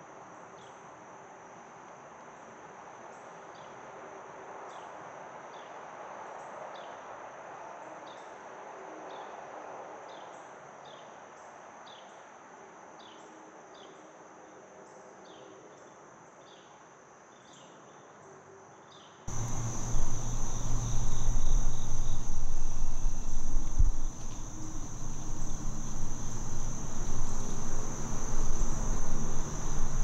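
Steady high-pitched insect chorus of crickets, with short falling chirps about once a second over it at first. About nineteen seconds in, the sound suddenly gets much louder, with a low rumble coming in under the insects.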